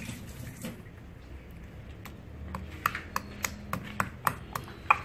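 Stone pestle knocking and grinding in a stone mortar (cobek) as fresh chilies, lemongrass and turmeric are pounded into a spice paste. Short sharp knocks start about two seconds in, about three or four a second, and grow louder.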